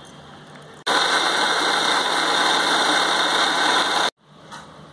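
Electric mixer grinder running at full speed, grinding fried peanuts, onion, coconut and chilli with a little water into a chutney paste. It switches on suddenly about a second in, runs steadily for about three seconds and cuts off abruptly.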